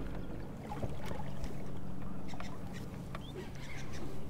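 Baitcasting reel being wound against a hooked mangrove jack, with scattered light clicks and splashes over a low steady hum.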